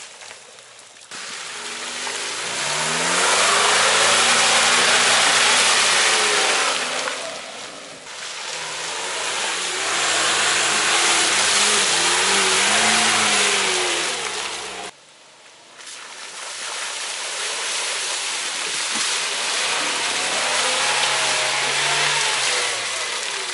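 Small 4x4 off-roaders, a Lada Niva and then a Suzuki Jimny, driving one after another through deep mud, their engines revving up and easing off as they pass, over a loud rushing noise. The sound breaks off abruptly twice where the shot changes to the next vehicle.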